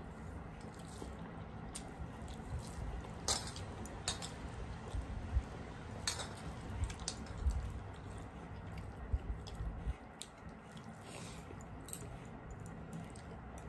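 Close-miked eating: chewing and wet mouth sounds, with fingers squishing and mixing rice and curry on steel plates, and scattered small clicks.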